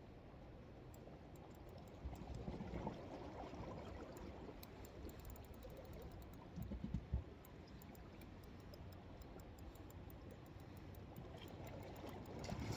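Faint, rapid ticking of a spinning reel as line is wound in, over a low wash of wind and water, with a short louder knock about seven seconds in.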